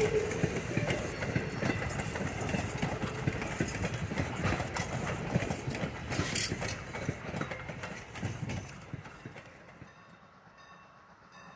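A train rolling past, its wheels clattering over the rail joints, fading away over the last few seconds.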